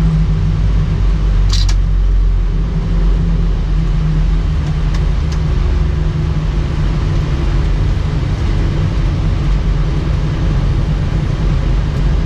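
Steady low rumble inside the flight deck of an Airbus A319 rolling slowly after landing, its engines at idle. One sharp click comes about a second and a half in.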